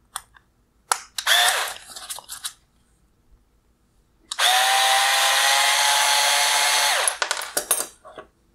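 Handheld electric screwdriver backing out a single T10 Torx screw from a plastic bracket on an LED headlight unit: a short run about a second in, then a steady whine of about two and a half seconds, its pitch rising slightly. A few light clicks follow near the end.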